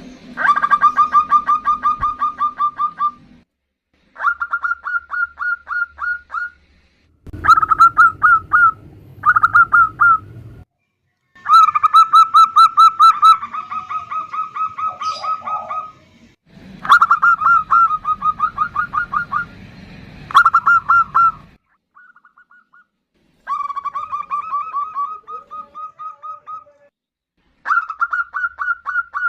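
Female zebra doves (perkutut) calling: rapid trilled bursts of quick, evenly repeated notes, each burst lasting from about one to four seconds, repeated about nine times with short gaps between.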